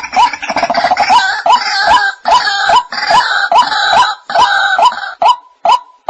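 White-breasted waterhen calling: a loud, short note repeated about twice a second. A rapid stuttering series runs over it at the start, and harsher croaking calls are layered in through the middle, until only the plain repeated note is left near the end.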